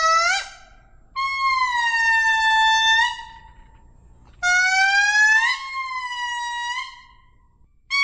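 Lemur giving a series of long, clear calls, each a second or two long and often sliding up in pitch at the end, with short pauses between.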